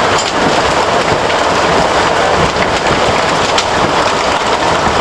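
Heavy hailstorm: hail and rain falling steadily and hitting the surroundings in a dense, even hiss, with a few sharp clicks of single hailstones striking.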